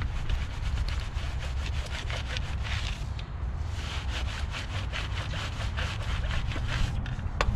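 Rim brush scrubbing a soapy car wheel between its spokes, with quick back-and-forth bristle strokes several times a second.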